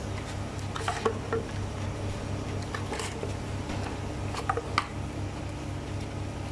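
Scattered light taps and rustles of paper loaf moulds as dough balls are pressed into them and the moulds are moved, about half a dozen small knocks. Under them runs a steady low machine hum with a gentle pulse.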